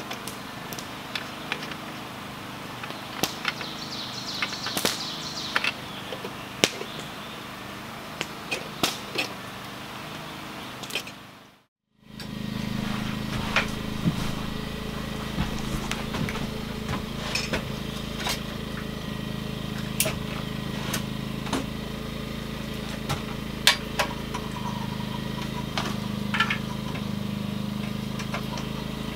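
Metal hurricane lanterns and a plastic jug of lamp oil being handled on a wooden table: scattered light clicks and knocks, with a brief hiss about five seconds in. After a sudden cut near the middle, a steady low hum sets in under more clicks as a lantern is handled and hung.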